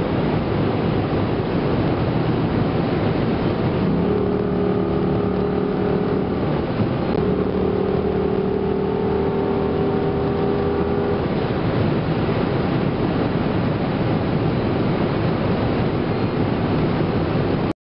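Dodge Magnum SRT-8 at motorway speed on a wet road, heard from inside the cabin: a steady rush of tyre and wind noise over the drone of its 6.1-litre Hemi V8. The engine drone holds one steady pitch from about 4 to 11 seconds in, and the sound cuts off suddenly near the end.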